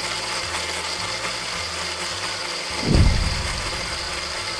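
Battery-powered toy blender's small motor whirring steadily, with a faint high whine. About three seconds in there is one loud low thump.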